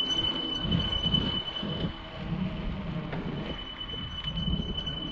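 Bicycle rolling along an asphalt path, heard from the bike: an uneven rumble of tyre noise and wind on the microphone, with a thin, steady high whine that drops out for a second or so midway.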